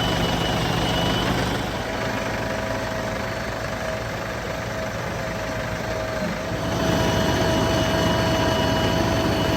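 Heavy diesel engine of a backhoe loader or tractor running steadily, with a thin steady whine above it. It eases off for a few seconds and picks up again about seven seconds in.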